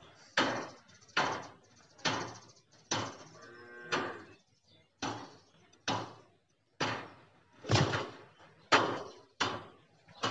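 Indian ringneck parakeet calling over and over: about a dozen loud, harsh squawks, roughly one a second, each cut short, with one longer pitched call just before the 4 s mark.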